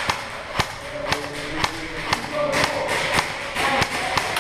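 Airsoft guns firing single shots, with BBs striking hard surfaces: irregular sharp cracks and snaps, several a second, with distant voices underneath.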